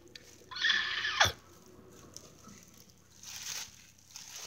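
Plastic bubble wrap crinkling and rustling as a large sheet is handled, loudest for about a second near the start and ending in a sharp snap, then a fainter rustle later on.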